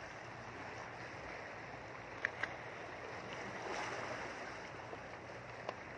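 Steady wash of sea waves and wind. A few sharp small clicks come from a fishing rod and line being handled: two close together about two seconds in, and one more near the end.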